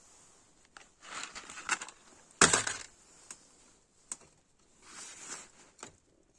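Handling noise: rustling and clicking, with one sharp, loud knock about two and a half seconds in.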